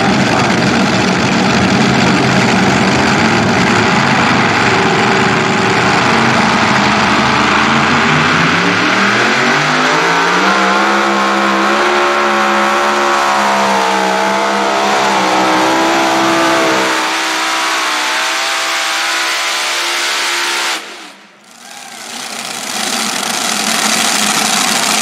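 Super modified pulling tractor with several supercharged engines running hard under load through a pull. The engine note climbs in pitch about a third of the way in and then holds. The sound drops out sharply for a moment near the end, then comes back loud.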